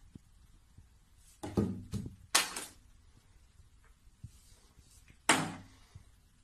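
Plastic bottle knocked over by a cat's paw: two knocks a second apart as it tips and lands on its side on the shelf, then a louder thud a little after five seconds as it is pushed off the edge.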